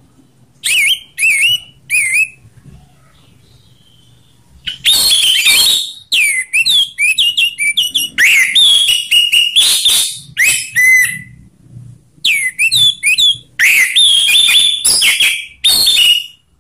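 Orange-headed thrush singing loudly in whistled, fast-changing phrases: three short phrases at the start, then after a pause a long, rapid run of varied whistles with brief breaks.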